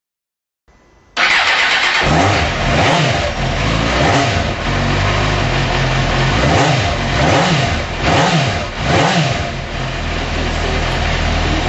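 Suzuki GSX-R600 K1's inline-four engine through a Scorpion aftermarket exhaust firing up about a second in. It is then blipped through a series of quick revs that rise and fall, and settles into a steady idle near the end.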